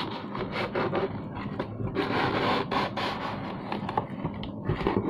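Hands handling and turning a cardboard shipping box close to the microphone: a run of short rubs and scrapes of cardboard.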